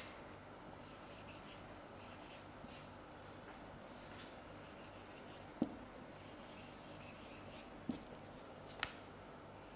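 Marker pen scraping faintly across a whiteboard as words are hand-written, with three short clicks in the second half.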